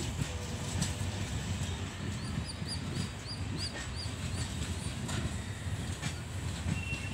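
Passenger train coaches rolling past on the track with a steady low rumble and scattered wheel clicks. A bird chirps repeatedly, about three times a second, in the middle.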